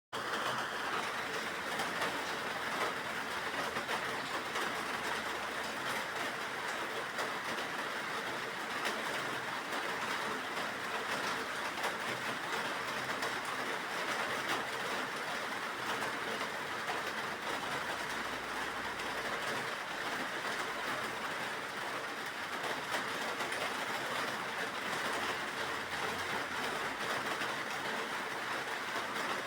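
Steady rain: an even hiss of many fine drops, unchanging in level.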